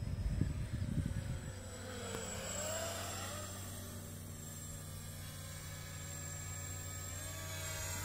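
Small 250 mm quadcopter's brushless motors and propellers whining in flight. The pitch dips and rises as it passes about two seconds in, then holds a steady buzz that climbs slightly near the end. A gusty low rumble fills the first second and a half.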